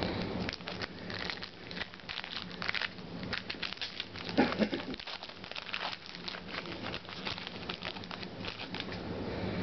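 Football trading cards being flipped through by hand and set down one after another: a quick run of light card slaps, flicks and rustles.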